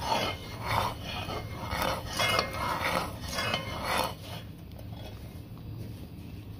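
A metal spoon stirring thick, boiling panela syrup in a metal pot, scraping the pot in regular strokes a little faster than one a second. The stirring stops about four seconds in. The syrup is nearly thick enough to take the toasted sesame seeds.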